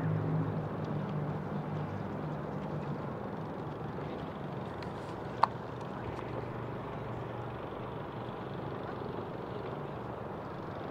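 A boat engine's low hum fading out over the first two or three seconds, leaving steady outdoor background noise. One sharp click comes about halfway through.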